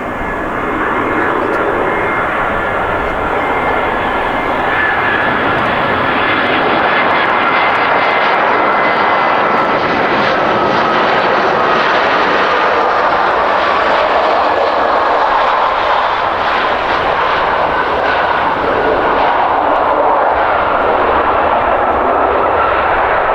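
Jet airliner's engines passing close: a loud, steady rush of engine noise with a high whine that slowly falls in pitch.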